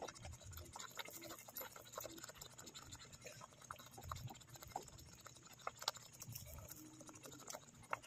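Fine white seasoning granules sprinkled over dry spaghetti, landing as faint, scattered ticks, with a few soft low thumps.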